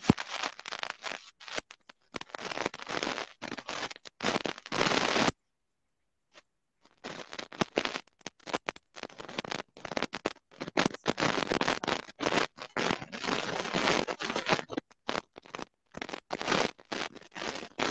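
Scratching and crackling from fingers rubbing a wired earphone's inline microphone. The noise comes in rapid irregular bursts and cuts out completely for about a second and a half after five seconds, as the call connection drops.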